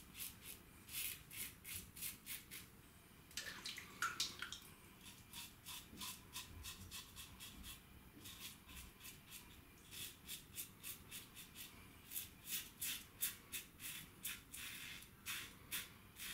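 Gillette Adjustable double-edge safety razor with a Gillette Nacet blade scraping through lathered stubble in runs of quick, short strokes, several a second, with brief pauses between runs.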